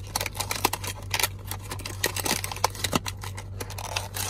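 Small paperboard product box being opened by hand: cardboard flaps scraping and rustling, with many short irregular clicks.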